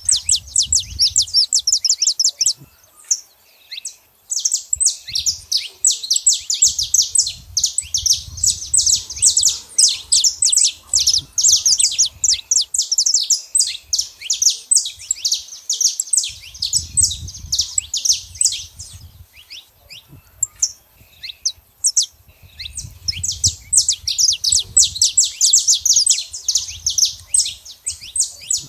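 Saffron finch singing: long, rapid runs of high, chirping notes, broken by brief pauses.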